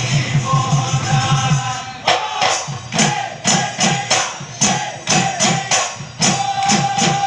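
Assamese Bihu husari music: dhol drums beaten in a fast, even rhythm of about five or six strokes a second under a held, wavering melody line. About two seconds in, the rhythm breaks into sharp, ringing drum strokes and clashes at a looser pace while the held melody continues.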